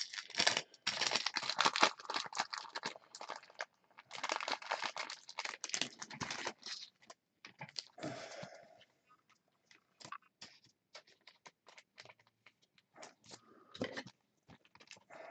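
Plastic trading-card packaging crinkling and rustling as cards are handled, dense for the first several seconds, then scattered light clicks and taps.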